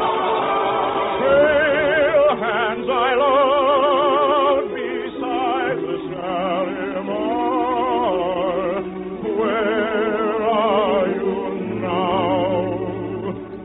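Operatic music from an orchestra with sung voices, the held notes wavering in a strong vibrato. It is an old radio recording and sounds muffled.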